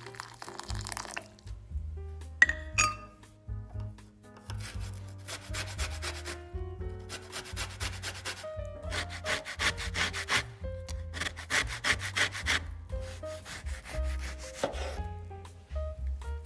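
An orange rubbed over a flat stainless-steel hand grater to take off the zest: quick rasping strokes in three runs. Soft music plays underneath.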